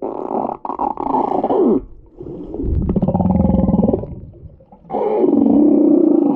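Humpback whale vocalizing: three long calls, the first ending in a falling pitch and the middle one lower, with a rapid pulsing rattle like a snore.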